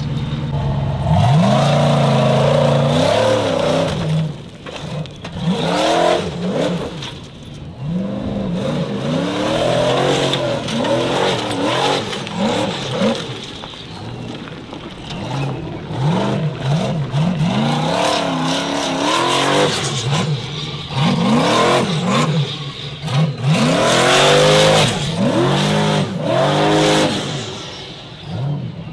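Formula offroad buggy's race engine revving hard over and over as it climbs a steep dirt hill, its pitch sweeping up and dropping back many times in quick succession. A noisy rush from the tyres spinning in the dirt surges with the revs.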